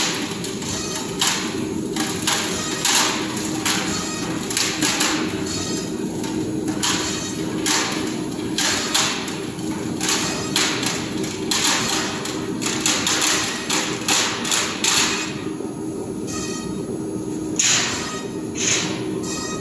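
Steady machine hum in a workshop with irregular sharp knocks and taps, one or two a second, that stop about three quarters of the way through; two short, louder noise bursts follow near the end.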